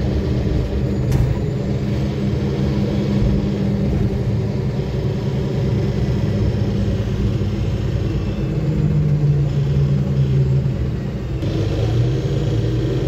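Inside a 2009 Nova Bus city bus under way: a steady diesel engine drone with road rumble. A single sharp click sounds about a second in, and the engine note changes for a couple of seconds around eight to ten seconds in.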